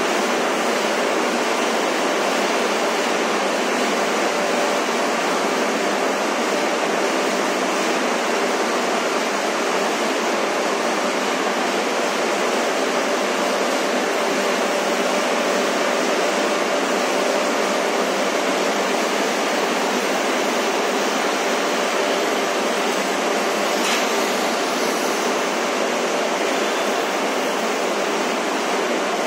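Steady machinery noise in a municipal solid waste sorting plant: an even, rushing din with a faint steady hum underneath, unchanging throughout.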